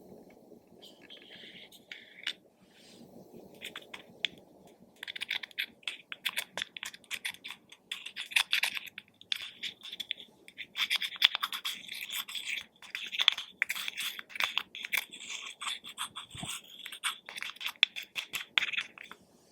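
Clear slime being kneaded and stretched by hand, giving off fast, irregular sticky crackles and pops. The crackles are sparse at first, turn dense about five seconds in with a brief lull near the middle, and stop just before the end.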